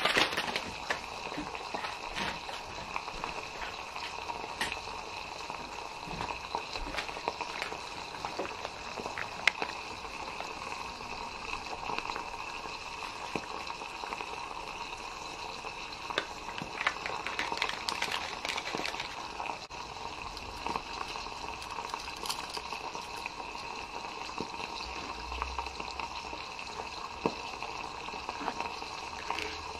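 Water simmering in a small stainless-steel pan over an alcohol stove: a steady bubbling hiss. Light clinks and rustles come through it, busiest a little past the middle, as corn soup mix goes in and a spoon stirs the pan.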